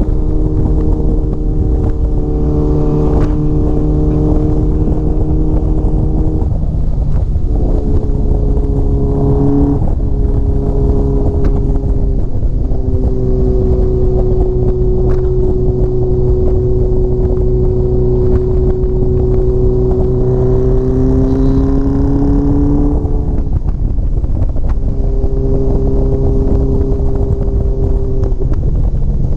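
Honda CBX750 cafe racer's inline-four engine running at a steady cruising pitch on the move, the note stepping up and down several times as the revs change.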